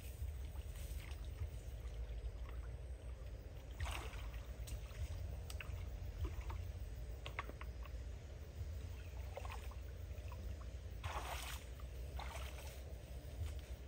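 Water splashing and sloshing as a person wades through a shallow pond and dips a plastic bucket to fill it, with the louder splashes about four seconds in and again near eleven and twelve seconds, over a steady low rumble.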